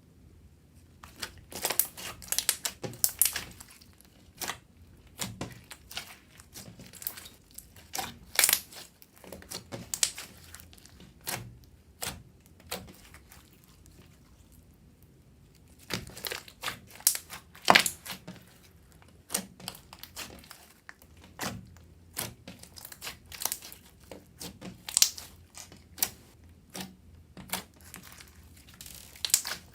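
Irregular crinkling and crackling, many sharp clicks in quick uneven runs, dropping off for a few seconds about halfway through.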